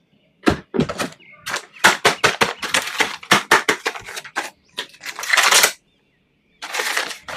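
Plastic toy and packaging being handled: a quick, uneven series of sharp clicks and taps, then a short rustle about five seconds in.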